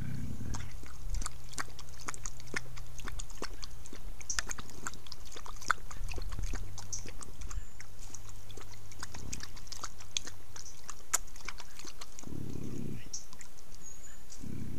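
Mountain lions making mouth sounds at close range: a steady run of soft wet clicks and smacks as the mother laps at the creek and a kitten mouths her neck, with a brief low rumble about twelve seconds in.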